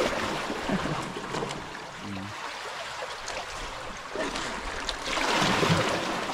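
Water splashing and rushing, louder about five seconds in.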